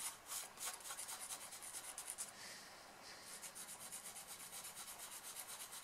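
Pastel pencil scratching and rubbing on paper in quick, light shading strokes, several a second, faint.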